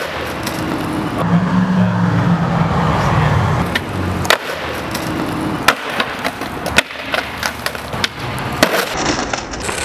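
Skateboard wheels rolling over rough asphalt, then a series of sharp clacks in the second half as the board's tail pops and the board lands and grinds onto a concrete ledge.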